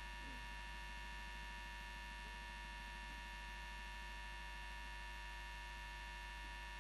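Steady electrical hum and buzz made of several unchanging tones, with no other sound standing out.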